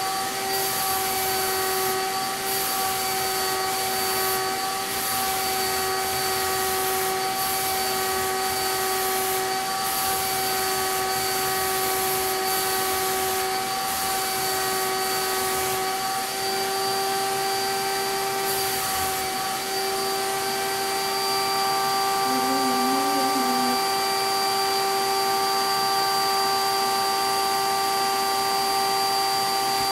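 CapSpray HVLP turbine sprayer running steadily with a constant whine of several fixed tones. Air hisses from the spray gun on top of it as the gun is worked.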